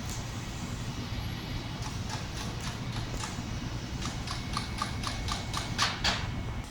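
Air conditioner outdoor unit running with a steady hum. From about two seconds in, a quick regular clicking, about four a second, grows louder and ends in two loud clacks near the end.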